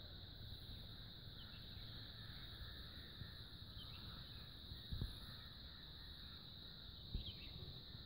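Faint outdoor field ambience: a steady high-pitched insect drone, a few brief bird chirps, and two low thumps on the microphone in the second half.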